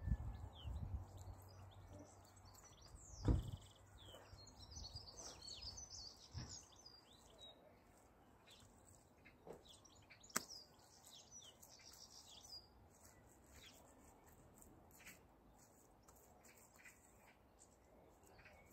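Small birds chirping and twittering in bursts. A few soft thuds and a sharp click come from wet daub being pressed by hand into a woven wattle raised bed; the loudest thud is about three seconds in.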